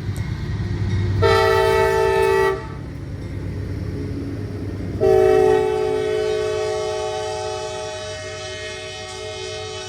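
Diesel locomotive air horn on a southbound freight train sounding a chord of several tones: a blast of about a second and a half, then after a short gap a long blast that slowly trails off, over the low rumble of the train.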